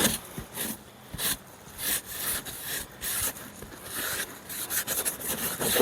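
Cleaning wipe rubbing and scrubbing a camper roof surface by hand: a run of short, irregular wiping strokes a few tenths of a second apart.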